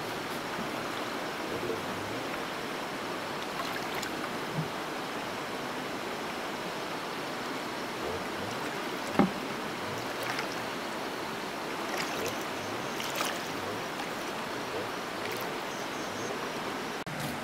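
Steady rush of flowing water, with a few brief knocks; the loudest is a sharp one about nine seconds in.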